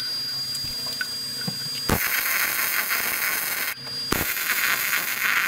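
MIG welder arc crackling and hissing as a weld is run on thick steel plate, in stitches that stop briefly about two seconds in and again about four seconds in. The welder is a 240-volt, 180-amp machine.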